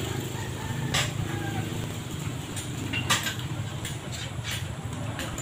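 Sharp metallic clicks and clanks as a flat steel bar is handled and set into a manual bending jig: one about a second in, one about three seconds in, and a few more near the end. A steady low rumble runs underneath.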